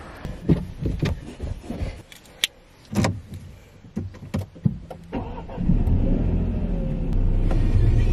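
Inside a car: a few clicks and knocks, a sharper one about three seconds in, then the car's engine starts about five and a half seconds in and runs steadily, a little louder near the end.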